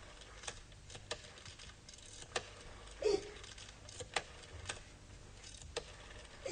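Telephone being dialled by hand: scattered sharp clicks from the dial, with a brief, louder, muffled sound about three seconds in.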